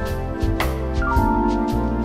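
Instrumental keyboard music: held synthesizer and electric piano chords over a bass line, with a steady beat of about four hits a second. The chord and bass shift about a second in.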